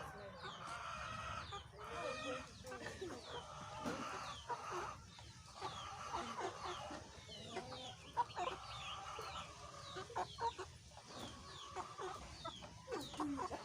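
A flock of chickens clucking and calling, overlaid with many short, high, falling peeps.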